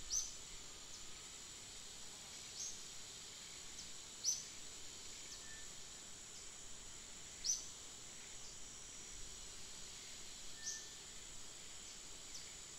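Steady high-pitched insect chorus, with about six short, high, downward chirps at irregular intervals of a couple of seconds standing out above it.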